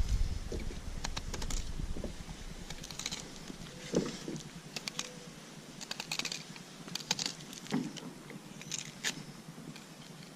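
Fillet knife cutting through a freshly caught mahi-mahi: quiet, irregular clicks and scrapes.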